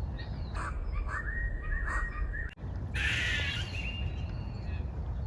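Birds giving short repeated calls, several close together and more again after a brief dropout about halfway, over a steady low rumble.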